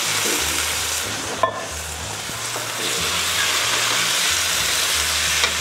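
Tomato sauce sizzling in a hot pan of fried curry spices, garlic and ginger while a spoon stirs it through. A single metal clink comes about a second and a half in.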